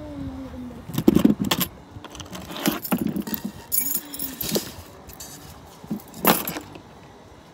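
Leaves and branches of a pear tree rustling and clattering in a few short bursts as a long pole is poked and shaken among them.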